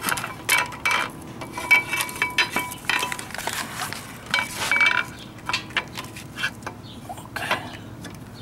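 Steel clutch pressure plate being shifted over the flywheel of a Honda D17A2 engine to seat it on the flywheel's locating dowels: repeated metal-on-metal clinks and scrapes, some leaving a brief ringing.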